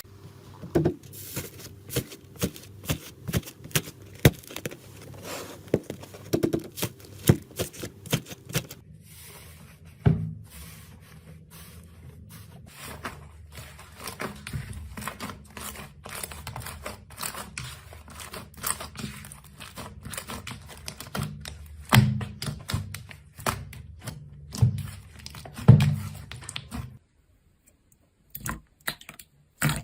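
Slime being pressed and squeezed by hand: a dense run of small clicks and crackles, with a few heavier squishy thuds about ten seconds in and again a few seconds before the end, then a brief stop and more clicking.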